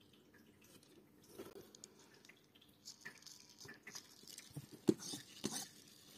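Faint scattered clicks and rustles of LEGO plastic being handled and fiddled with, growing busier in the second half, with a couple of louder knocks near the end.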